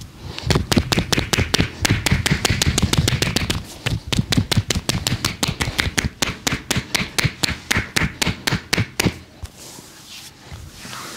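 Percussive massage strikes on a body, landing in a quick, even rhythm of about five or six a second and stopping about nine seconds in.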